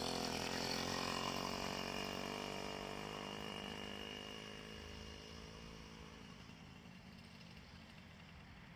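Small two-stroke moped engine running under load on a gentle uphill, its sound steadily fading away over several seconds as the moped moves off.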